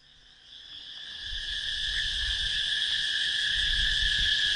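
Steady insect chorus, a continuous high chirring that fades in over the first couple of seconds, with a low rumble underneath.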